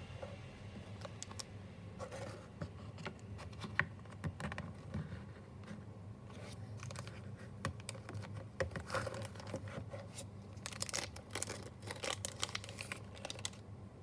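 Crinkling and rustling of a clear plastic sleeve as a Zippo lighter is worked out of its box and slid out of the bag, with small taps and scrapes of handling. The crackling starts about two seconds in and is busiest in the last few seconds.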